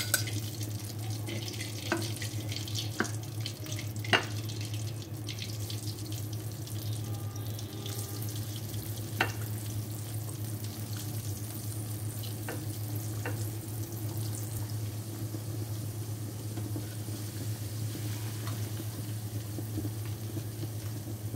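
Cornflour-coated chicken pieces deep-frying in hot oil in a wok, a steady sizzling hiss, with a few sharp clicks and a steady low hum underneath.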